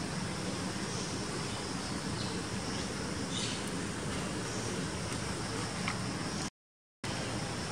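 Steady background noise with a low hum and a few faint ticks and rustles. The sound drops out to silence for about half a second near the end.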